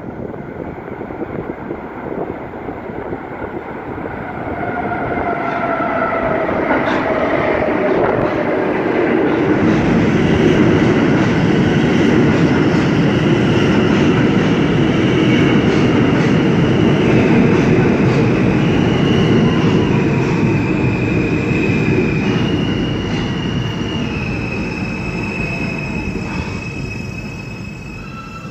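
New York City subway train of R160 cars pulling into an underground station. The rumble builds from a few seconds in and is loudest as the cars run alongside. Brief wheel squeals come early, then a high electric whine that shifts up and down in steps as the train brakes, and the rumble eases near the end as it slows.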